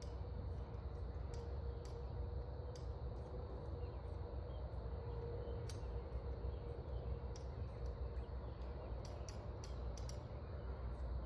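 Faint unattended background: a steady low rumble with a faint hum and scattered light high ticks.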